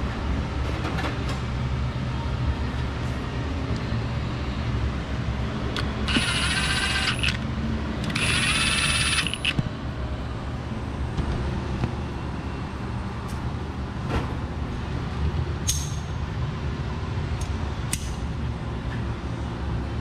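A ratchet spun quickly in two bursts of about a second each, running down the nuts on a connecting rod cap, over a steady low hum. A few light metal clicks follow.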